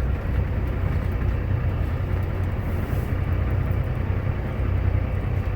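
Semi truck's Cummins ISX diesel engine running at low speed, a steady low rumble while the truck rolls slowly.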